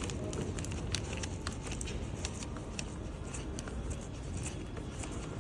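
Steady low background rumble with many small scattered clicks and taps.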